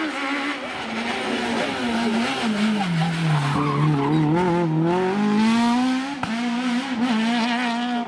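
Peugeot 106 rally car engine at racing revs. The revs fall as the car brakes and downshifts into a hairpin, then climb again as it accelerates out, with a brief break near six seconds at an upshift.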